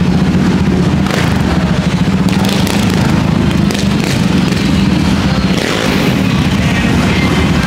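A vehicle engine running loudly and steadily close by.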